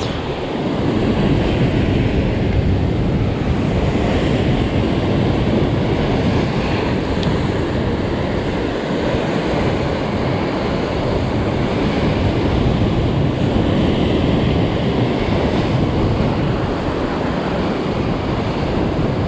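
Ocean surf washing against a rocky shoreline in a steady rush, with wind buffeting the microphone.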